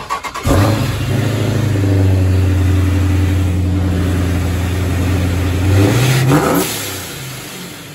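Supercharged Dodge Charger HEMI V8 fires up suddenly and runs loud and steady for about five seconds. About six seconds in it revs up once, then drops back to a quieter idle.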